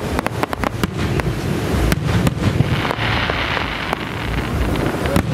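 Aerial fireworks bursting: a rapid cluster of bangs and crackles in the first second or so, then scattered pops, with a hissing rush about three seconds in, over a steady low rumble.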